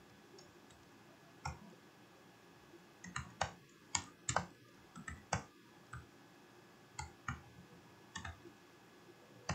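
Computer keyboard keystrokes: sharp, irregular clicks, single and in quick clusters of two or three, as code is typed and edited.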